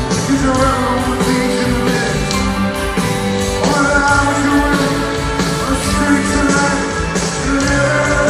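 Rock music playing, a band with a steady beat.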